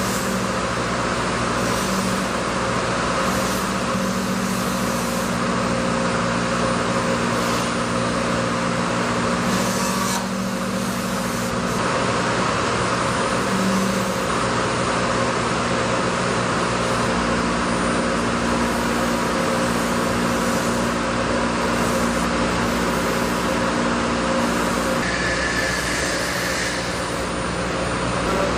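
Thermwood Model 90 five-axis CNC router's spindle running as its cutter mills low-density foam. A steady machine noise with a constant hum underneath, shifting a little as the head moves.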